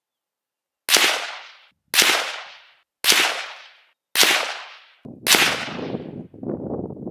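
Five shots from a Warwick Firearms WFA1 rifle in .300 Blackout, firing Winchester 150-grain Extreme Point rounds, about a second apart. Each shot is a sharp crack with a ringing tail that fades out before the next.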